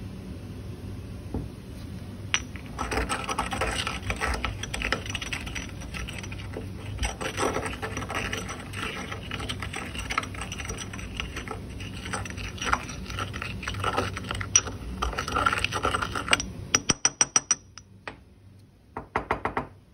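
Porcelain pestle grinding a coarse granular mixture against the inside of a porcelain mortar, an uneven gritty scraping as the grains are crushed to a fine powder. Near the end, two quick runs of sharp taps of ceramic on ceramic.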